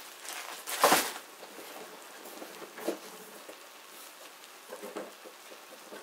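Diced chicken frying in a pan with a faint crackling sizzle, broken by a few knocks and clatters of kitchen things being handled, the loudest about a second in and another near three seconds.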